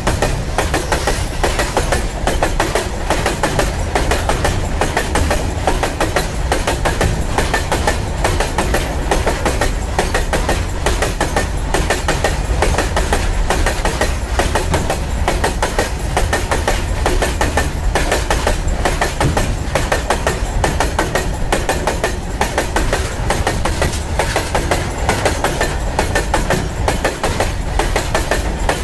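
BOXN open freight wagons rolling past at close range: steel wheels on the bogies clatter over the rail joints in a fast, continuous clickety-clack over a low rumble.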